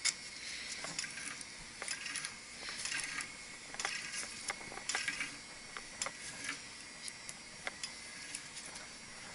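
Small metal clicks and clinks at irregular intervals: threaded pipe fittings and tools being handled during pipe assembly.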